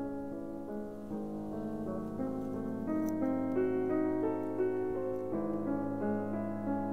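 Background piano music, held notes changing about once a second over a steady low tone.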